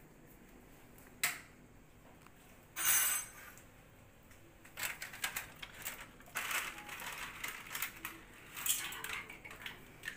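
Steel pans, lid and utensils clinking and clattering on a gas hob, with a sharp click about a second in, a short louder noisy burst about three seconds in, then frequent light clinks and knocks.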